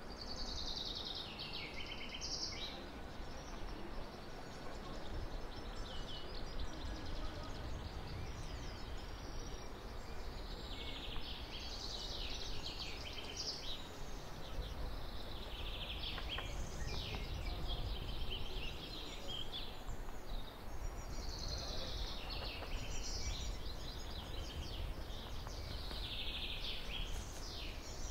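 A songbird singing short phrases of a few seconds each, repeated every few seconds, over a steady low background rumble.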